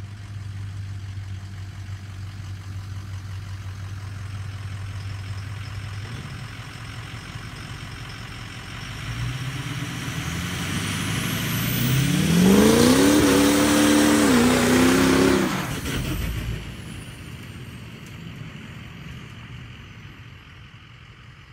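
Pickup truck, a 1968 Ford F-250 on a 2006 Super Duty chassis, making a hard full-throttle launch to spin the rear tires in a test for wheel hop. Its engine runs steadily at first, then revs up loud as the truck passes, the pitch rising, dipping once and rising again over the hiss of spinning tires, and fades away after the pass.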